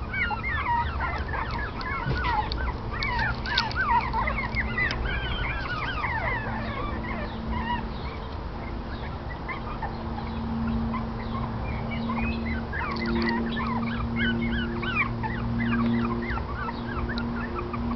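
Several five-week-old Shih Chon (Shih Tzu × Bichon Frise) puppies squeaking and yelping in a rapid jumble of short high calls, busiest in the first few seconds and again later on. A low steady hum runs underneath from about six seconds in.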